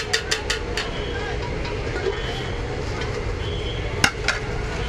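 Busy market background of crowd chatter over a steady hum. A quick run of sharp crinkling clicks comes in the first second, and two more about four seconds in, from a plastic bag of soup being shaken and tied off with a rubber band.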